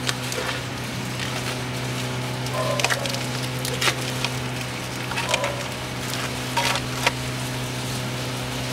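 Air intake duct being worked into place on the engine by gloved hands, with paper masking pulled off the openings: a scatter of plastic clicks, knocks and paper crinkles over a steady low hum.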